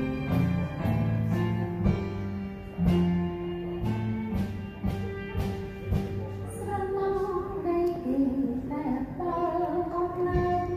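Live band of electronic keyboard, guitar and violin playing with a steady beat; a woman's singing voice comes in about six and a half seconds in.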